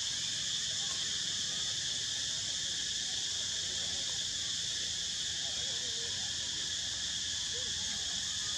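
Steady, high-pitched chorus of forest insects droning without a break, with faint short calls underneath in the second half.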